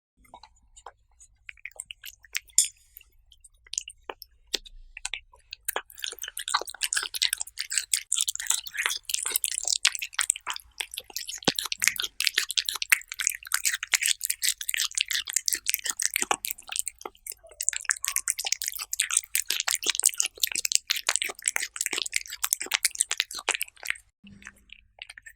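Cats eating, close-miked: sparse wet chewing clicks at first, becoming a dense, steady run of chewing and smacking about six seconds in, then thinning out near the end.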